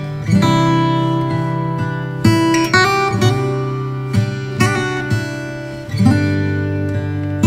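Background music: gentle acoustic guitar playing sustained plucked chords, a new chord every second or two.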